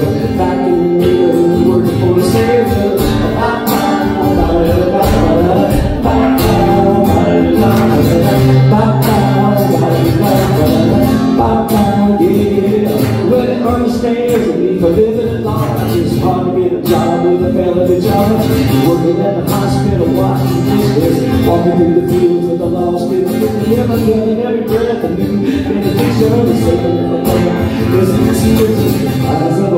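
Acoustic guitar strummed steadily, with a man singing along in a live solo performance.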